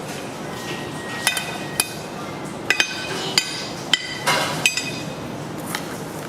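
A metal utensil clinking against a dish about eight times in irregular succession, each a sharp ringing clink, as chips are served out.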